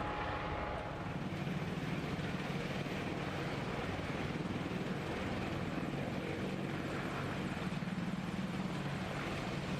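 Steady rotor and turbine noise of an AH-64 Apache attack helicopter running.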